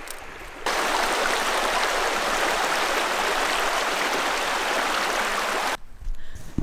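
Creek water rushing steadily, cutting in abruptly about half a second in and cutting out near the end.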